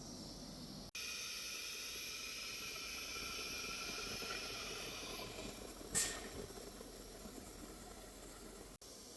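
Heliner CNC router running through an automatic tool set: a steady hiss with several constant high whining tones, then a single sharp knock about six seconds in, followed by a softer hiss.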